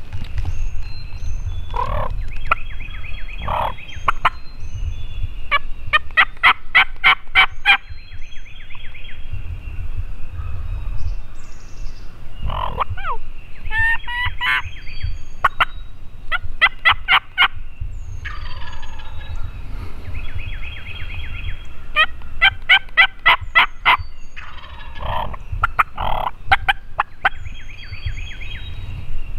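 Wild turkey tom (longbeard) gobbling three times, each gobble a loud, fast rattling call lasting about two seconds, with songbirds chirping thinly in between.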